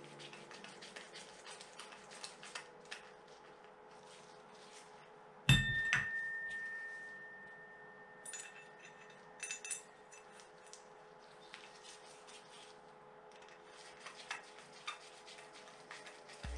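Small metal carburetor parts and tools clicking and tapping as they are handled and fitted. About five and a half seconds in, one sharp metallic knock rings out with a high tone that fades over about two seconds.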